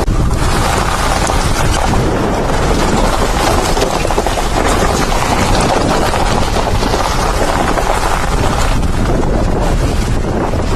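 Heavy wind noise on the microphone over the steady rumble of a Jeep driving.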